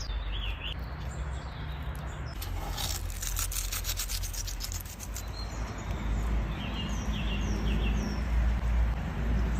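Fat melting over heat, sizzling steadily, with a dense burst of crackling pops from about two and a half to five seconds in. Birds chirp briefly near the start and again a few times later.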